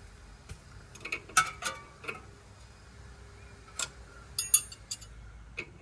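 Metal hand tools clicking and clinking on the engine-bay fittings as a spanner or socket is worked onto the power steering line; a handful of irregular sharp clicks, with a quick cluster of several a little after four seconds in.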